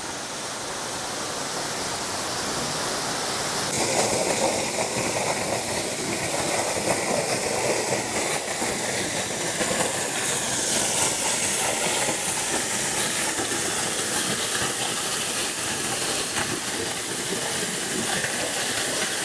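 Waterfall pouring down a rock gorge: a steady rush of falling water, growing louder over the first few seconds and then holding.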